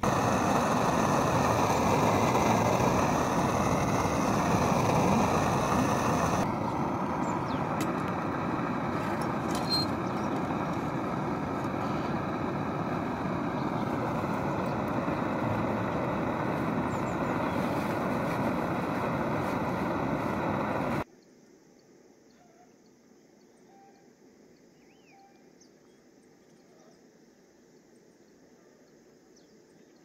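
Steady loud roar of a camping stove burner heating a pot of liquid. It cuts off abruptly about two-thirds of the way through, leaving a faint, quiet outdoor background.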